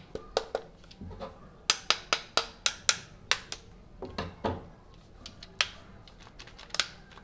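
Sharp plastic clicks from a cordless drill being handled and turned over: a quick, even run of about eight clicks near the middle, then a few scattered ones.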